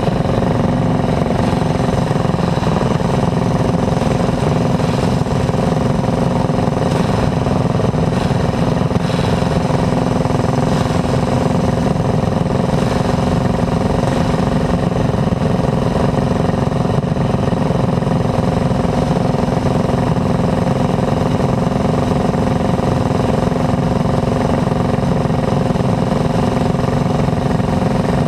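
Clone four-stroke single-cylinder kart engine running at steady low revs, with other kart engines around it, as the karts roll slowly in line.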